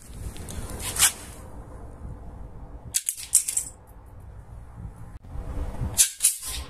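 Small wooden spring-loaded slingshot pistol being handled and fired: sharp wooden clacks and clicks, one about a second in, a quick cluster around three seconds in and another around six seconds in.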